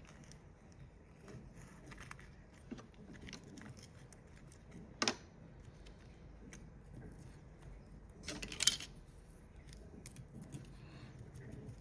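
Small clicks and rustles of hand work on the microwave-oven transformer's winding and insulation, with one sharp click about five seconds in and a louder burst of clicking and rustling around eight and a half seconds in.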